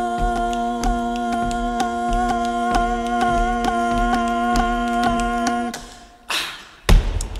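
A cappella voices holding one long hummed chord over a steady body-percussion beat of sharp clicks and taps. The chord stops near the end, followed by a short hissing rush and heavier slapped thumps.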